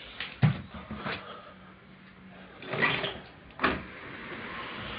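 A few sharp knocks and clunks, the loudest about half a second in, with a short rattle near three seconds and another knock just after it.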